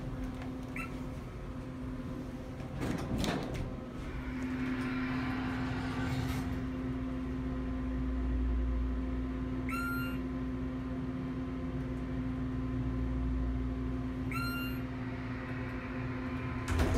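Otis hydraulic elevator in motion, heard from inside the cab: a clunk about three seconds in, then a steady hum with a low rumble as the car travels. Two short electronic chimes sound about four seconds apart in the second half, and another clunk comes at the very end.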